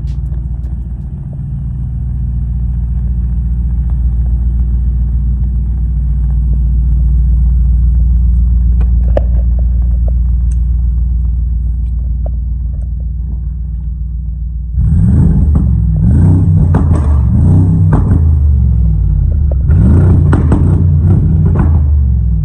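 Tuned twin-turbo V8 car engine running with a deep, steady rumble. About two-thirds of the way in it turns suddenly louder and rougher, with uneven surges.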